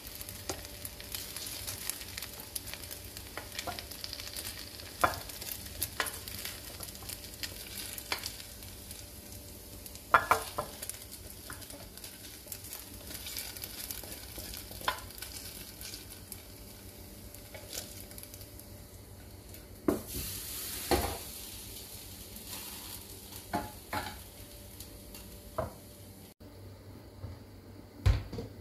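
Cooked shell pasta being scraped out of a stainless steel pot into a terracotta dish with a spoon: soft stirring and sliding sounds, with repeated clinks and knocks of the spoon and pot rim against the dish over a steady hiss.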